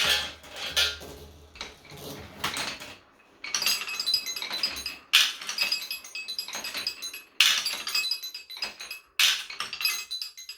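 Music with bright, ringing bell-like notes, phrases starting sharply every second or two, with a short pause about three seconds in.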